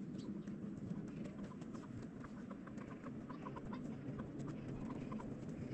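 Domestic fowl giving short, scattered clucking calls over a steady low outdoor rumble.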